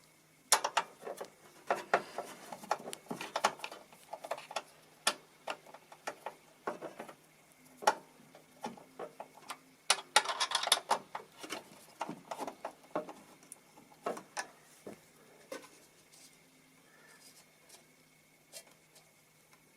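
Scattered clicks, taps and light rattles of a screwdriver and metal computer parts being handled while screws are undone inside a desktop PC, with a busier stretch about halfway through. A faint steady hum runs underneath.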